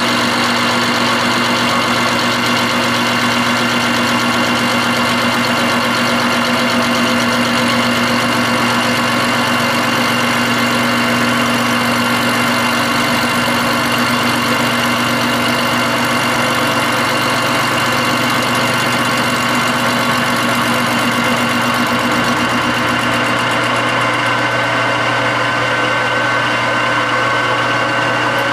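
Metal lathe running steadily under power feed, its motor and gear train giving a constant hum with a high whine, while it takes a light facing cut across a tractor rear axle bearing hub.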